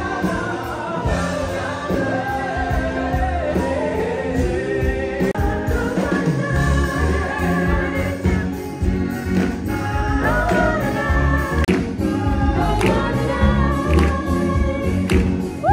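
Male vocal group singing in harmony into microphones, backed by a band with keyboards and a steady bass beat.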